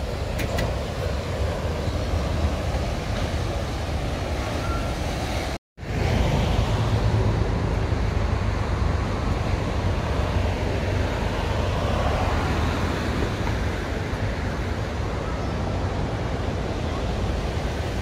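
Steady outdoor ambience with a heavy low rumble, which drops out for an instant about six seconds in.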